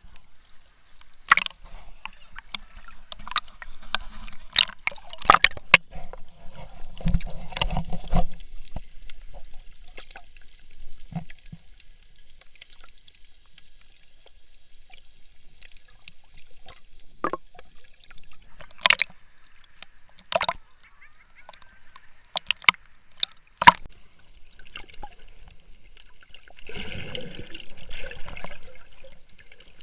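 Water sloshing and gurgling, with scattered sharp knocks and clicks, loudest as several separate knocks and a longer wash of water near the end.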